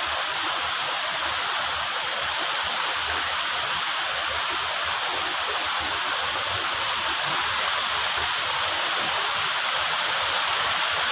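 Steady, unbroken rush of a waterfall's falling water close by.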